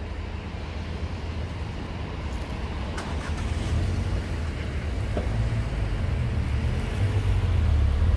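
Road traffic: cars pulling away from a level crossing and driving over it as the barriers lift, with a steady low rumble. It grows louder near the end as the car waiting closest moves off.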